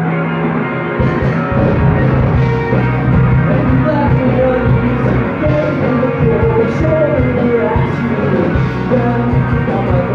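Live emo/math-rock band playing: electric guitars and bass hold chords, then about a second in the drums and the full band come in, with steady drum hits and cymbals over the guitars.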